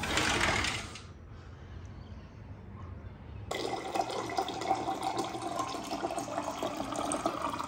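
A short, loud rush of noise in the first second. Then, from about halfway in, a water dispenser's stream pours steadily into a glass over ice cubes, filling the glass, and cuts off abruptly at the end.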